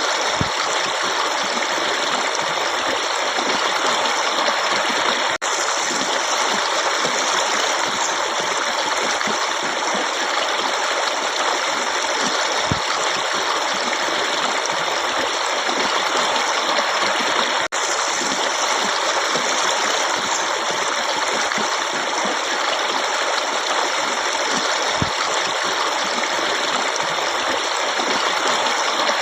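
Forest stream running steadily, an even rush of flowing water. The sound drops out for an instant twice.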